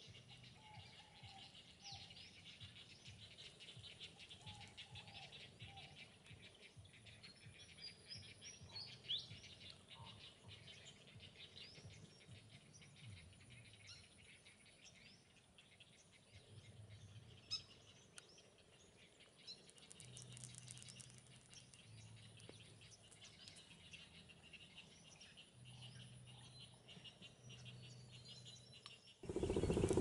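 Faint chorus of bird calls from a heron colony: many short, high chirps and scattered ticks. In the last second the sound jumps abruptly to a much louder, dense din.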